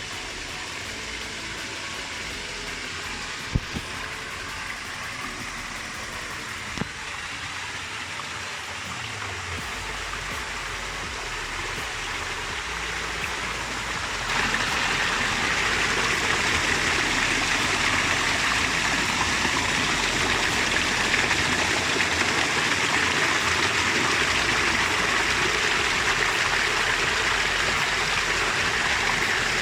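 Rushing water of a forest stream and waterfall, a steady hiss that grows louder and fuller about halfway through. Two faint knocks early on.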